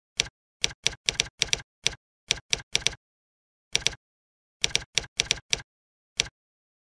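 Typing on a computer keyboard: quick, irregular runs of sharp keystrokes with short pauses between them, and silence in the gaps.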